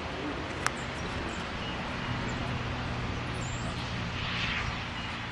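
Steady outdoor background noise with a low hum, a single sharp click under a second in, and a brief hissy swell near the end.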